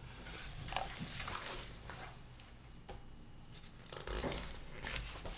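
Paper rustling as a picture book's page is turned and the book handled, with a few light knocks and clicks.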